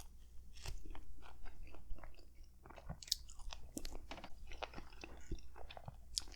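Close-miked chewing of a mouthful of hoagie sandwich on a soft roll, with many small wet mouth clicks and crackles at an uneven pace.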